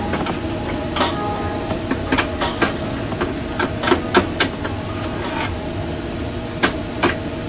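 Metal cooking utensils clacking and knocking on a flat-top griddle and fryer, about nine sharp irregular knocks, over the steady hum and noise of the running kitchen.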